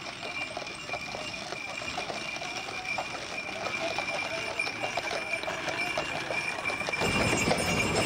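Draft horses' hooves clip-clopping irregularly on a paved lane as they pull horse-drawn tram carriages. About seven seconds in, a louder, deeper rumble comes in.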